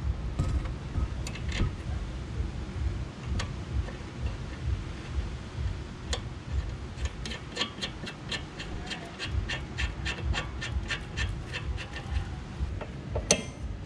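Ratchet wrench clicking in a quick, even run as the nut on a sway bar end link is tightened, after a few scattered clicks. A sharp metal clank near the end.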